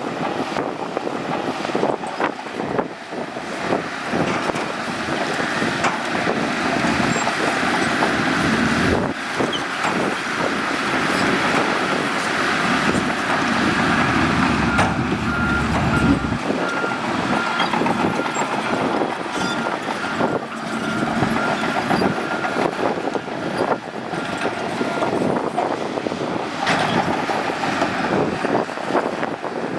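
Shantui bulldozer's diesel engine working under load, with knocks and clatter throughout. A reversing alarm beeps rapidly and evenly for several seconds in the middle.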